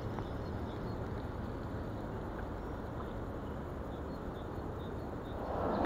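Steady low outdoor rumble with no distinct events. Near the end, a louder rushing of flowing river water comes in.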